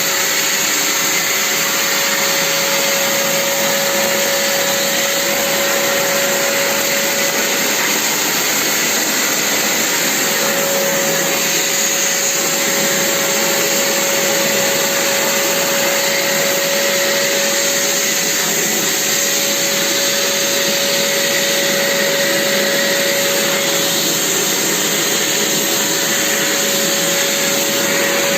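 Vacuum cleaner running steadily: a constant motor whine over the rush of air.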